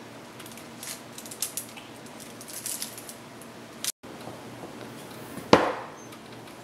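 Small clicks and taps of a glass measuring jug being handled on a table, then one sharp, loud knock about five and a half seconds in.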